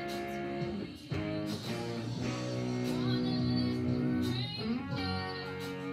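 Squier electric guitar playing chords and single notes, with some notes gliding in pitch about four seconds in.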